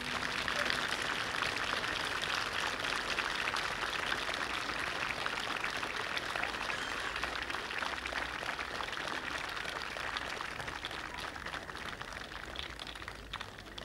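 Crowd applause: many hands clapping in a dense, steady patter that dies away over the last few seconds.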